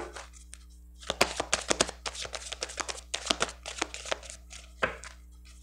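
A deck of Lenormand (baralho cigano) cards being shuffled by hand: a quick run of light card clicks and rustles that starts about a second in and stops shortly before the end.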